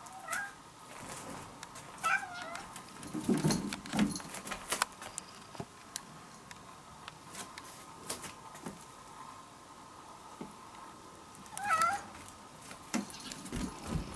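Ginger tabby cat meowing three times in short, wavering meows: one at the start, one about two seconds in and one near the end, with a few soft knocks a couple of seconds after the second meow.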